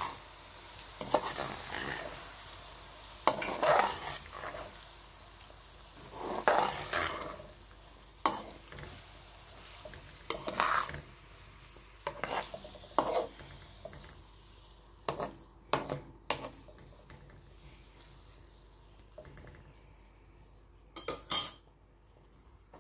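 Spatula scraping and knocking against a kadhai as cut okra is stirred into onion-tomato masala, with a faint sizzle from the hot oil between strokes. The strokes come in short bursts every second or two, the loudest clack near the end.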